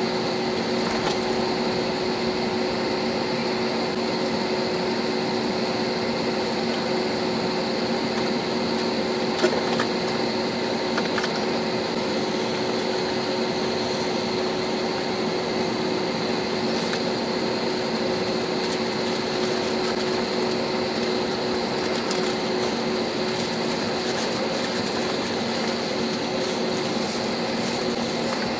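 Steady cabin noise of a jet airliner taxiing after landing, heard from a window seat beside the engine: the engines' idle hum and high whine over the rush of cabin air. A single brief click a little over nine seconds in.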